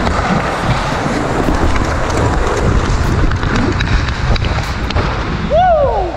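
Wind rushing over a helmet-mounted action camera's microphone, with ice skate blades scraping as a hockey player skates hard. Near the end, one shout that rises then falls in pitch.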